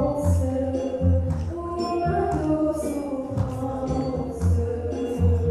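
A girl's voice singing a melody into a microphone over backing music, with a pulsing bass beat and light percussion hits.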